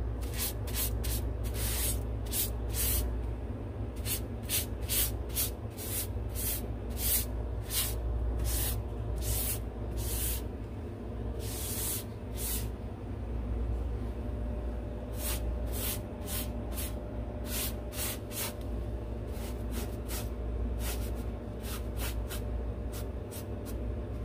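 Aerosol spray paint can hissing in many short, irregular bursts, a few held a little longer, as a shelf is painted. A steady low hum runs underneath.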